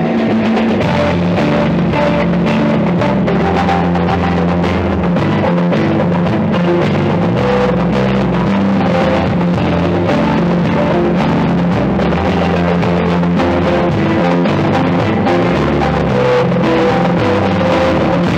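Live rock band playing loud and steady: electric guitar and a drum kit over a low bass line that steps from note to note.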